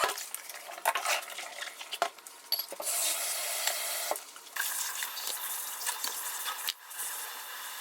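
Cooking in a kitchen: utensils clinking against a pan or dish, then a steady sizzling hiss from about three seconds in.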